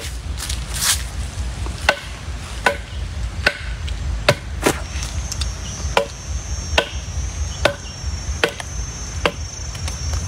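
Machete blade chopping into the base of a young bamboo shoot, a steady series of sharp blows about one every second, roughly a dozen in all.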